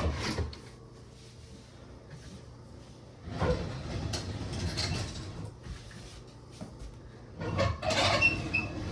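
Old Frigidaire dishwasher being slid out of its cabinet opening, scraping and rumbling in two pulls: one about three and a half seconds in and another near the end.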